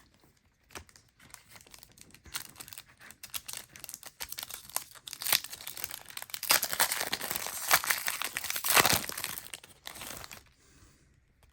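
Plastic trading-card pack wrapper crinkling and tearing as it is handled and opened, with a busy crackle that builds and is loudest in the second half before dying away.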